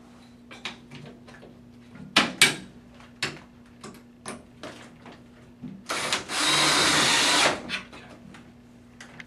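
Cordless drill driving a screw up through a ceiling curtain track into the wood above, one steady run of about a second and a half. Before it come scattered light clicks and knocks from handling the track and its metal hooks.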